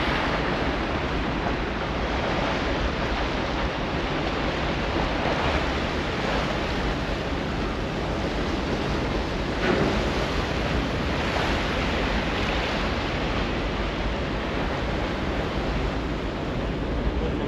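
Steady wind buffeting the microphone on the open deck of a moving cruise ship, over the rushing water of the ship's wake and a low rumble.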